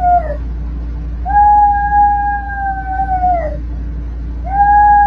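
Small dog howling: long, steady howls that sag in pitch as each one ends. One howl ends just after the start, a second lasts about two seconds, and a third begins near the end.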